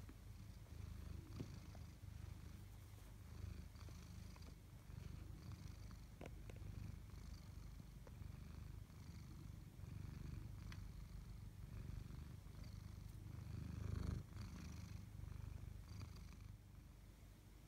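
Tabby cat purring steadily, a low rumble with a few faint clicks, swelling briefly louder near the end.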